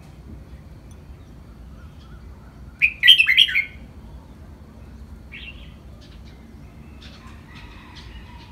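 Red-whiskered bulbul singing: one loud, quick phrase of chirping notes about three seconds in, followed later by a few fainter short calls.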